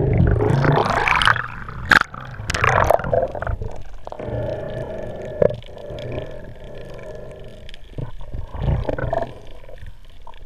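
Muffled underwater noise heard through the camera's housing as a spearfisher swims and handles a speargun: water rushing with knocks, loudest in the first three seconds. After that it settles to a quieter steady hum with scattered clicks.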